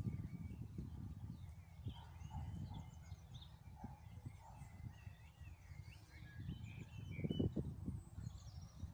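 Small birds chirping in a run of short calls through the middle, over a low rumble of wind and footsteps on soft wet ground; the footsteps get heavier near the end.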